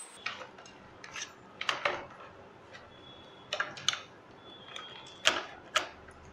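Clicks and knocks of a Dell Latitude E6410 laptop chassis being handled and turned over on a table, its plastic and metal body bumping and clicking, in a few clusters with the loudest knock near the end.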